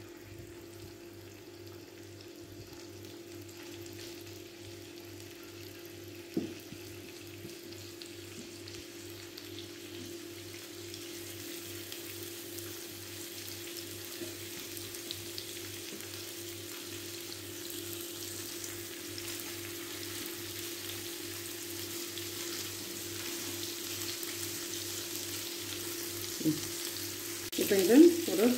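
Marinated mutton rib chops frying in a few spoons of oil in a flat pan: a soft, steady sizzle that grows gradually louder as the pan heats, over a steady low hum.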